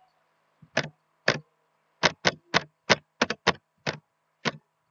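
Computer keyboard typing: about a dozen single keystrokes, each a short sharp click, unevenly spaced and most closely bunched in the middle, as a search word is typed in.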